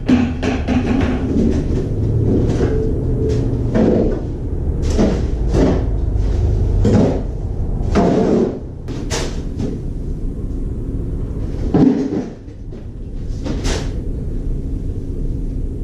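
Knocks and scrapes of hand work laying a cement mortar shower-floor bed, roughly one a second, over a steady low rumble.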